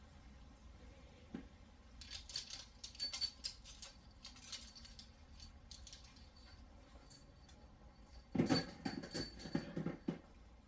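Loose metal engine parts clinking and rattling together as they are handled, in a burst about two seconds in and a louder one near the end.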